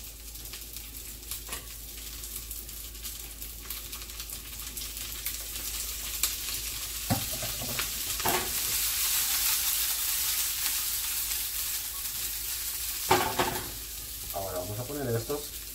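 Oil sizzling in a frying pan of broccoli on a gas stove, a steady hiss that swells in the middle, with a few sharp knocks of pan and utensils, the loudest near the end.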